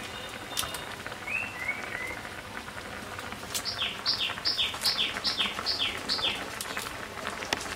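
A songbird singing a run of repeated falling whistled notes, about three a second, starting a few seconds in, after two short chirps. Underneath is a faint steady hiss from pots cooking over a wood fire.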